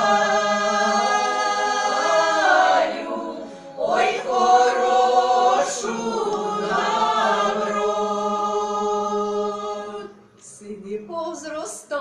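Women's folk choir singing a Ukrainian folk song unaccompanied, with long held notes. The singing breaks off briefly about three and a half seconds in, and again about ten seconds in.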